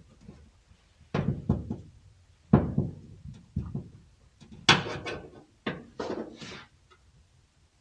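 A series of irregular knocks and thumps, about ten sharp hits in loose clusters, with the loudest a little after two seconds in and near the middle.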